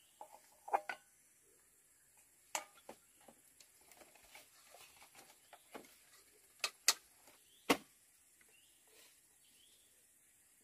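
Scattered light clicks and taps at irregular intervals, with a few sharper knocks, the loudest two about seven and eight seconds in.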